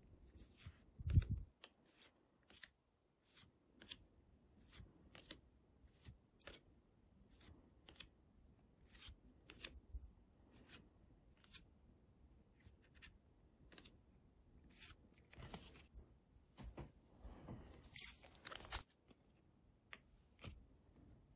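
Pokémon trading cards sliding off one another as a stack is paged through by hand: a short, crisp card-on-card swish about every half second, with longer rustles near the end. A single dull thump about a second in.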